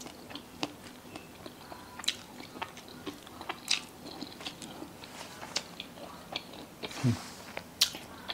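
A person eating close to the microphone: chewing a mouthful of rice dish, with many small, irregular wet mouth clicks. Two louder clicks come about seven and eight seconds in.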